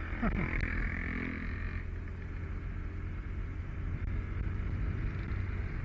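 Motorcycle engine running steadily while riding, under wind rumbling on the microphone. A higher engine note in the first couple of seconds eases off.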